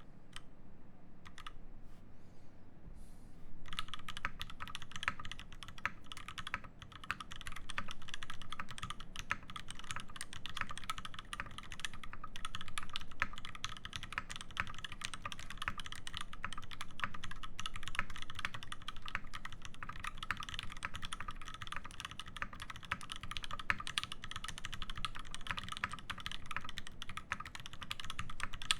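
Typing on an IRON 180 mechanical keyboard with a brass plate, lubed Gateron Ink Black V2 linear switches and GMK keycaps. A few scattered keystrokes at first, then fast, continuous typing from about three and a half seconds in.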